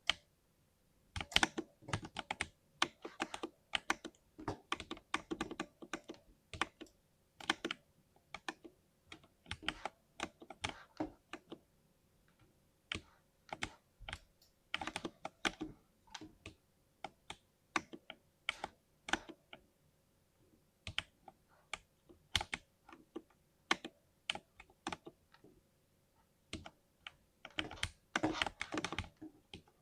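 Typing on a 60% mechanical keyboard: irregular runs of key clicks and clacks, with short pauses between bursts and a dense flurry near the end.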